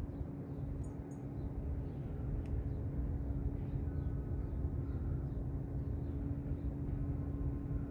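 Outdoor background: a steady low rumble with a faint, even hum, and scattered faint high bird chirps. No distinct bell strokes stand out.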